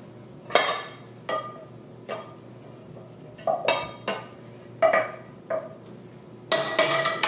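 A wooden spoon knocking and scraping cooked vegetables out of a stainless steel sauté pan into a glass bowl: about eight separate, unevenly spaced knocks, each ringing briefly, with a quick cluster near the end.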